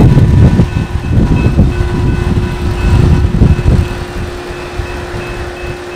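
Diesel genset switcher locomotive rolling past close by: its engines and wheels make a heavy low rumble that eases off about four seconds in as it moves on. A steady tone sounds throughout.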